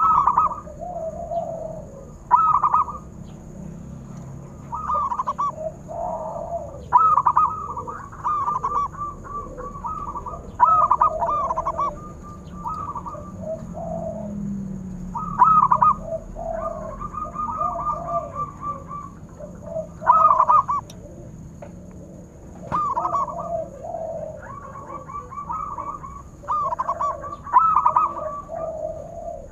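Zebra doves (perkutut) cooing: short phrases of quick rolling notes repeat every few seconds, some overlapping one another.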